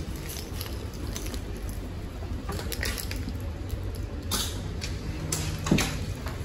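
Cabin noise inside an MTR Tuen Ma Line C-train: a steady low rumble with a few short, sharp hissing clicks in the second half.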